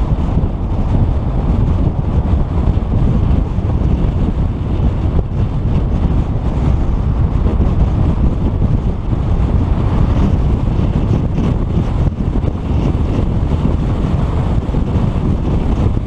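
Steady wind buffeting the microphone of a camera mounted on the hood of a moving Ford Mustang GT, a dense low rumble at road speed with no distinct engine note.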